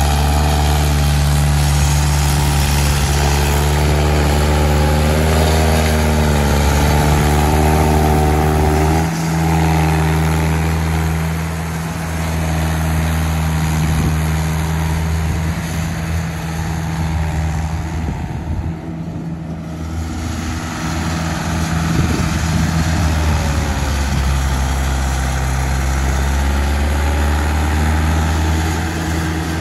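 Swaraj 744 XT tractor's three-cylinder diesel engine running hard under load, pulling a loaded soil trolley in low-range second gear. The engine note holds steady, wavering in its upper tones, and eases slightly about nine seconds in.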